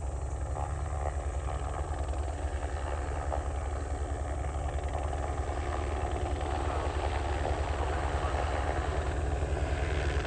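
Helicopter running, its rotor beating in a fast, even pulse over the engine sound, growing gradually louder toward the end.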